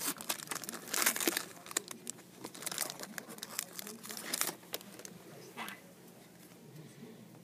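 Wrapper of a trading card pack crinkling and tearing as it is opened by hand: a run of quick crackles that dies away after about four and a half seconds, with one more short rustle a second later.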